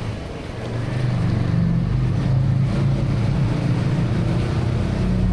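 Motorcycle engine running under way, getting louder about a second in as it pulls harder, with wind rushing over the helmet-mounted camera's built-in microphone.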